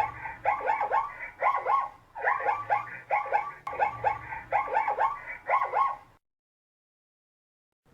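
Zebra calling: a barking, yelping call of short notes in quick clusters of about three, roughly two clusters a second. The calling stops about six seconds in and is followed by silence.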